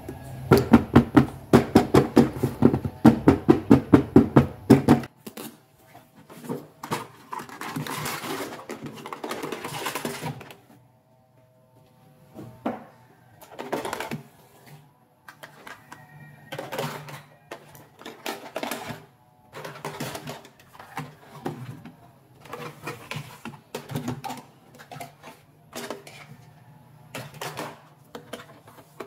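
A fast run of loud, regular clicks for about the first five seconds, then small pink plastic toy accessories clattering, clicking and knocking together as they are picked up and set down on a mat.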